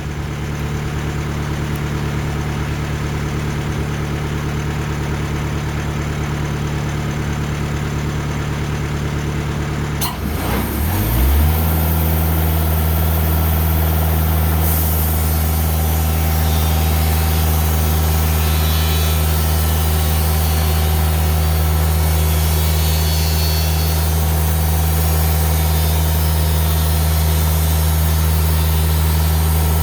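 Diesel engine of a TimberKing 2000 band sawmill running steadily at idle. About ten seconds in there is a click, and the engine revs up over a second to a steady, louder higher speed, with a high hiss added on top.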